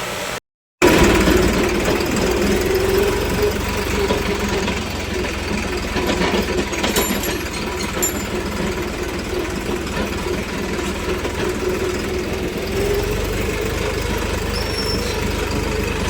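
New Holland 3630 tractor's diesel engine running steadily under way, with a loud continuous clatter. The sound cuts out briefly about half a second in.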